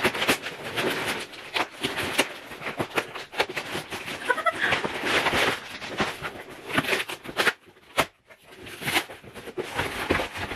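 Scissors snipping and scraping through packing tape on a cardboard shipping box, then cardboard flaps being pulled apart, with crackling, rubbing and tearing of tape and cardboard. A brief squeak comes about four and a half seconds in.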